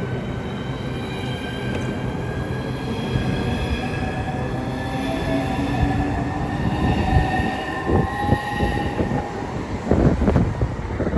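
Southeastern Class 395 'Javelin' electric train pulling out and picking up speed. Its traction motors give a whine of several tones that rises in pitch. From about seven seconds in, sharp knocks and a heavier rumble come from the wheels as the carriages run past close by.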